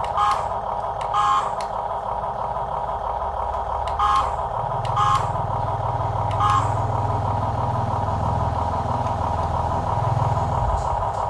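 Remote-control model truck running: a steady electronic engine drone with short beeps now and then, and a lower motor hum that starts about four seconds in and cuts off near the end.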